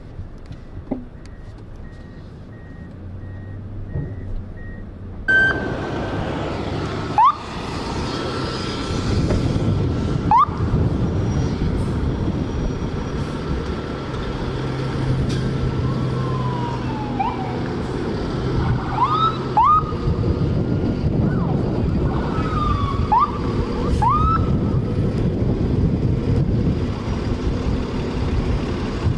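Emergency-vehicle siren giving short rising whoops and a few falling sweeps, about a dozen in all, over the low rumble of vehicle engines and traffic.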